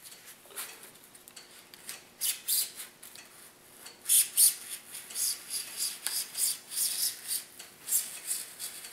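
Hobby knife blade cutting through a grass mat in short scratchy strokes, a few a second, faint at first and louder from about halfway in.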